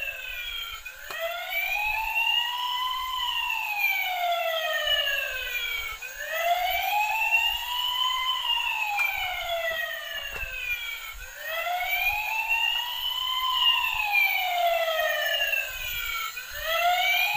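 Battery-powered toy fire truck's electronic siren wailing slowly up and down, about one rise and fall every five seconds, with a few faint clicks as the toy runs along the floor.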